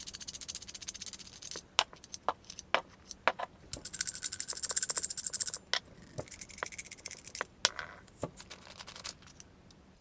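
Threaded sections of a large flashlight being unscrewed by hand: several runs of fine, rapid rasping as the threads turn, with separate clicks and taps as parts come apart and are set down.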